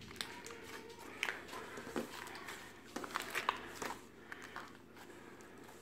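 Soft putty being squished and pressed by hand, giving irregular small wet pops and crackles as trapped air pockets burst, with a cluster of them about three seconds in.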